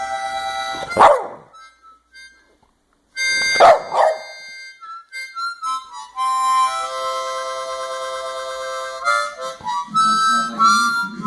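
Harmonica chords played while a Boston terrier barks over them: one loud bark about a second in and two more around four seconds in, with a short pause in the playing between. The harmonica then plays steady chords alone through the second half.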